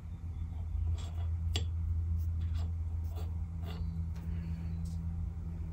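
A small brass block being turned over and set down on a hard worktop, with light knocks and scrapes. A steady low hum sounds underneath.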